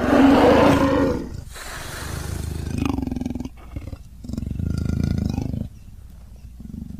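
Cave bear creature sound effect: one loud roar lasting about a second, followed by three quieter, lower roars.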